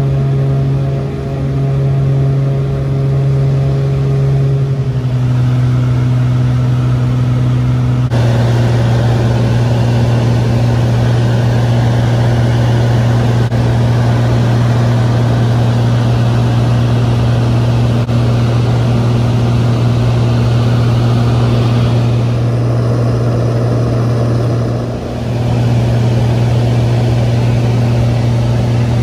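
Steady drone of a light floatplane's piston engine and propeller in cruise, heard from inside the cabin, with a low hum and overtones above it. The drone dips briefly twice and its character shifts a few seconds in.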